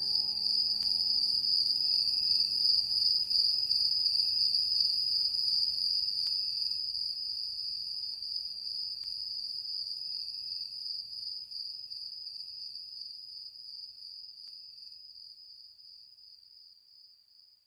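A steady, high-pitched, slightly pulsing trill like an insect's, left over from the slideshow's backing track after the melody ends. It fades slowly to near silence.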